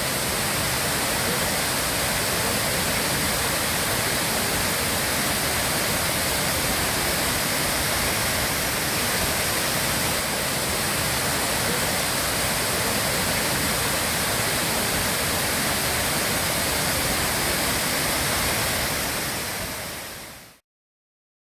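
Waterfall rushing steadily, a loud, even roar of falling water that fades out and stops near the end.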